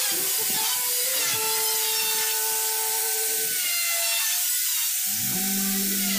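Handheld electric trim router cutting along the edge of a teak board, with a steady hiss of cutting and a motor whine that wavers and sags in pitch as it takes load.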